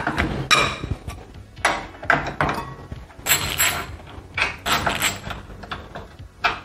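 Irregular sharp metallic clicks and knocks, about ten in all, as a ratchet and socket work the motorcycle's triple-clamp bolts and the loosened socket and bolts are handled.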